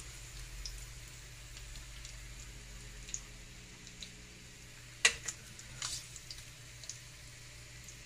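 Faint sizzle of butter in a grill pan, broken by a few sharp clicks and taps of metal tongs, the loudest about five seconds in, as the cooked steak is lifted out onto paper towel.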